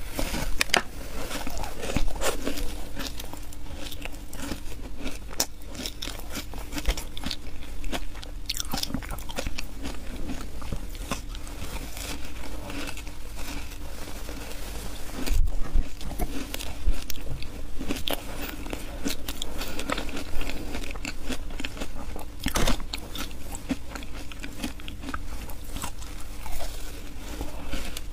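Bites and chewing crunches of a frozen block of matcha shaved ice, a dense, continuous run of sharp crackly crunches.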